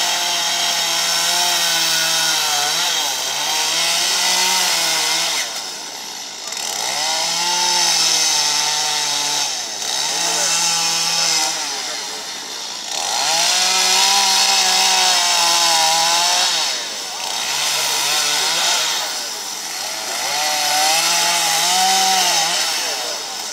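Gas chainsaw carving wood: the engine revs up, holds at high speed while the chain cuts, then drops back toward idle between cuts, about six times over.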